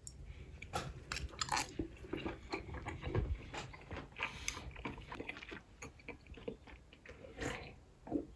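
A person biting into and chewing chicken-skin gyoza, with a run of short, irregular crackles as it is chewed.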